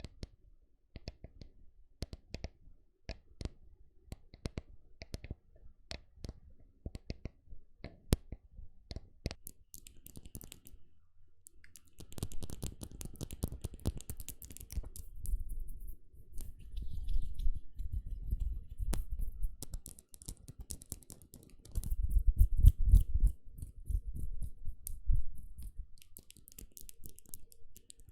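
ASMR trigger sounds made close to a microphone: scattered light taps and clicks for about twelve seconds, then denser scratching and crackling with low thuds on the microphone.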